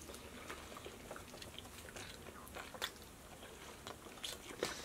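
Faint chewing and biting: Caesar salad and barbecue riblets being eaten, with scattered short wet mouth clicks.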